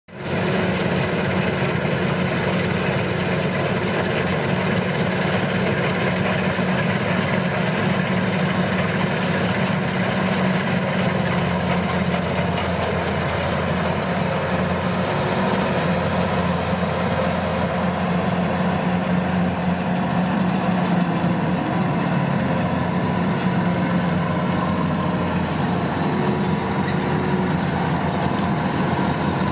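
Engine of a rice harvesting machine running steadily, a continuous low hum.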